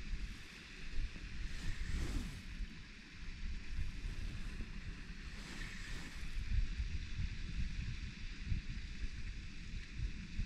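Wind buffeting the microphone in an uneven low rumble, with a steady higher hiss over it that swells briefly twice.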